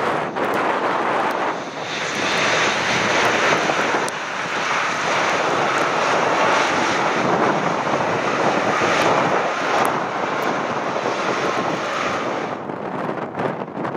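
Boeing 777's twin jet engines running loud and steady during its landing roll on a flooded runway. The roar builds about two seconds in and eases off about a second before the end.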